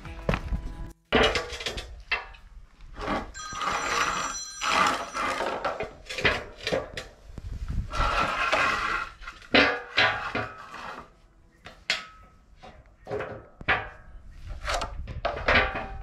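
Clanks and ringing of steel as the square-tube frame sections of a Logosol B1001 bandsaw mill are handled and bolted together with a wrench, with background music.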